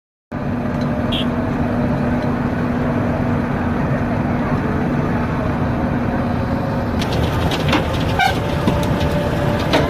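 Asphalt milling machine running as it grinds off an old asphalt road surface: a steady, heavy engine and cutting-drum din with a constant hum. About seven seconds in, the sound changes and clicks and rattles come in.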